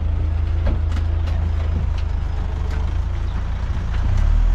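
Rough-terrain forklift's engine running as it carries a wrecked sedan on its forks: a steady low rumble that grows louder about four seconds in, with scattered light knocks.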